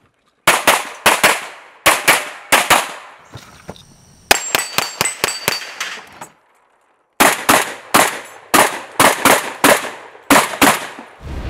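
Rapid gunfire in quick strings of shots, several a second. About four seconds in, the shots come with steel targets ringing as they are hit. The firing breaks off briefly around six seconds and resumes, and music starts right at the end.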